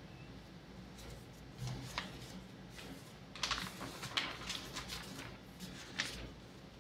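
Scattered light clicks and taps, with a quick cluster of them about three and a half to four and a half seconds in, over a faint steady hum.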